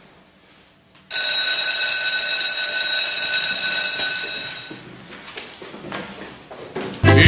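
School bell ringing: a loud, steady, high ring that starts about a second in, lasts nearly four seconds and cuts off sharply. Music starts just before the end.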